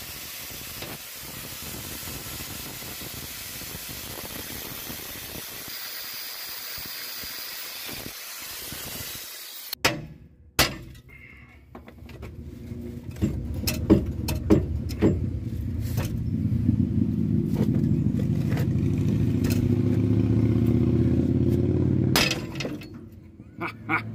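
An angle grinder's cut-off wheel cuts through a rusted U-bolt on a Dana 35 axle's leaf-spring mount, a steady high grinding that stops abruptly about ten seconds in. A few metal clanks follow. Then comes a louder low rumble with repeated knocks for about nine seconds.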